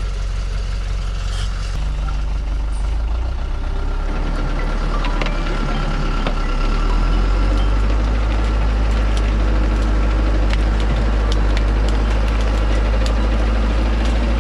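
Loaded log truck's engine running while stuck in mud, getting louder about seven seconds in and holding there, with scattered sharp clicks.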